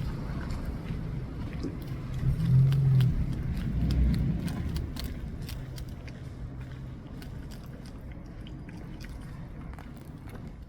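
Low engine rumble of a passing vehicle, loudest in the first few seconds and then fading away, with many small sharp crunching clicks throughout.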